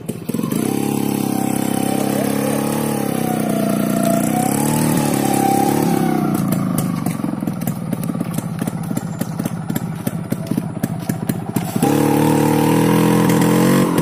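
Motorcycle engine running, its revs rising and falling for several seconds, then settling into an uneven chug, and about twelve seconds in rising to a steady, louder run as the bike moves off.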